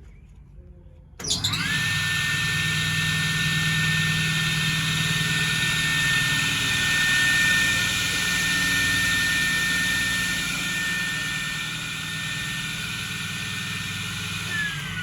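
Sliding table saw switched on about a second in: the motor and blade spin up quickly to a steady high whine and run at speed. Near the end the saw is switched off and the whine begins to fall as the blade winds down.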